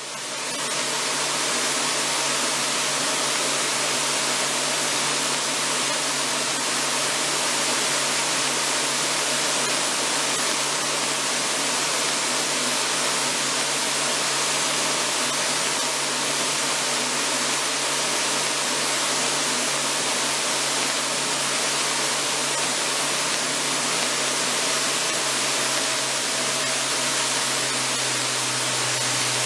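Steady cabin noise of an Aerotrek A240 light sport aircraft in cruise: engine and propeller drone with a low hum under a loud rush of wind. It fades in during the first second, then holds steady.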